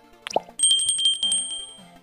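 Subscribe-button animation sound effects: a quick click-and-pop about a third of a second in, then a small bell rung in a rapid trill that rings on and fades, over background music.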